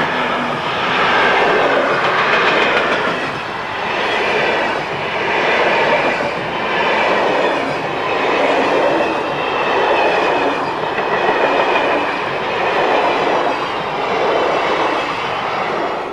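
Long locomotive-hauled express passenger train passing close by, its wheels clattering over the rail joints. The sound swells and dips about every two seconds and cuts off suddenly at the end.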